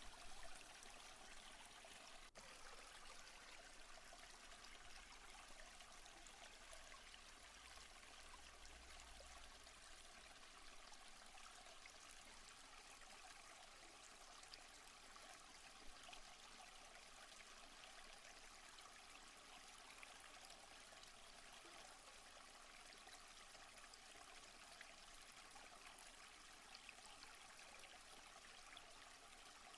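Faint, steady rush of stream water flowing.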